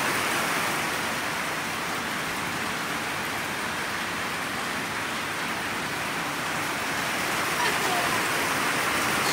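Steady rain falling on a wet timber deck and garden.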